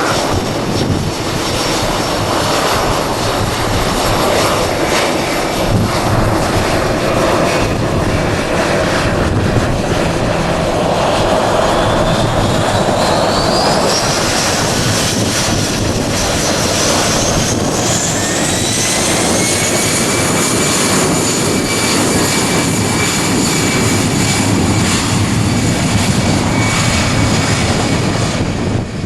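Jet airliner engines running with a loud, steady rush. About twelve seconds in, a whine rises in pitch and then holds steady as the engines spool up toward takeoff power.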